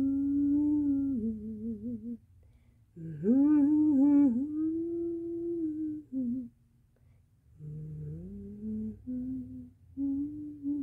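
A person humming a slow tune in several phrases, with short breaks between them and a slight wobble on some held notes.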